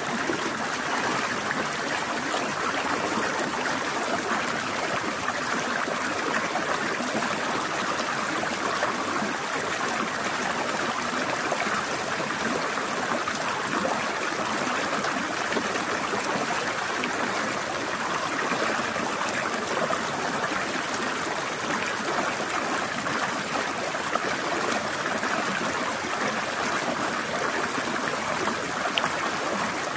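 Forest stream flowing steadily over rocks, a continuous trickling and gurgling rush of water.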